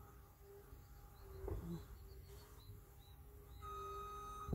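Faint outdoor quiet with a few soft, high bird chirps in the first half and one light bump about a second and a half in.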